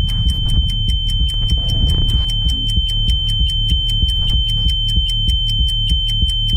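Electronic soundtrack music: a steady, high, alarm-like tone held over fast, even ticking at about four to five ticks a second and a pulsing low bass. A second, lower steady tone joins about two and a half seconds in.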